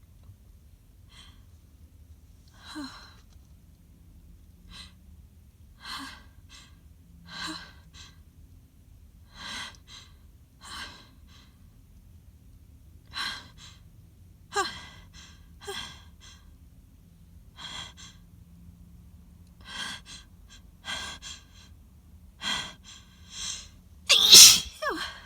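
A woman's sneeze build-up: a string of short, breathy gasping inhales, about one every second or so, some with a brief catch of voice. It ends in one loud, wet sneeze near the end.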